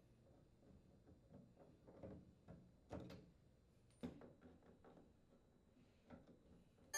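Faint clicks and knocks of screws being backed out of a dryer door with a screwdriver and the door being handled, a few separate knocks about a second apart.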